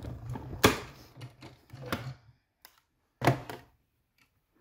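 Stampin' Cut & Emboss hand-crank die-cutting machine being cranked, the plate sandwich rolling through its rollers with a steady grinding hum and clicks, stopping about two and a half seconds in. A single loud clack follows about three seconds in as the cutting plates come free.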